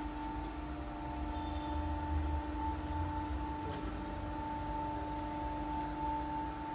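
Automatic wooden cold-press oil mill (marachekku) running, its motor-driven wooden pestle grinding a 10 kg seed charge in the mortar as oil drains out. It makes a steady mechanical hum over a low rumble.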